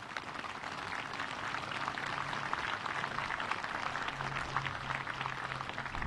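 Crowd applauding: a dense, steady patter of many hands clapping.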